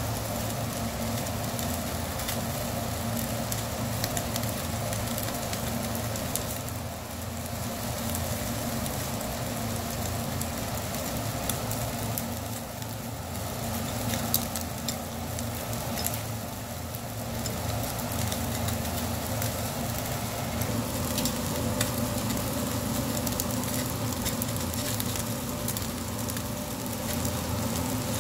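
Skewered eel fillets sizzling over charcoal on a wire grill, with scattered small crackles and a steady low hum underneath.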